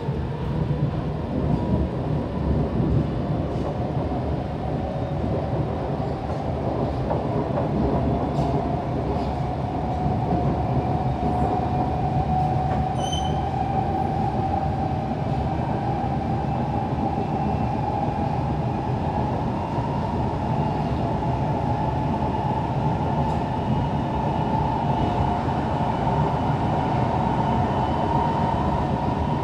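Siemens C651 metro train's traction motors whining as it accelerates out of a station, the pitch rising slowly and steadily, over the low rumble of the wheels on the track, heard from inside the car.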